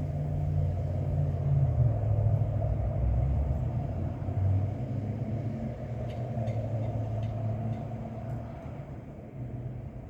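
Wind gusting against the microphone: a low rumble that eases off over the last few seconds, with a few faint ticks.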